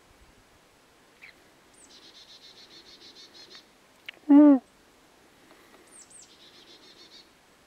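A small songbird singing twice, each song a thin high note followed by a rapid trill. About four seconds in, a single short, much louder call cuts in, its pitch rising and then falling.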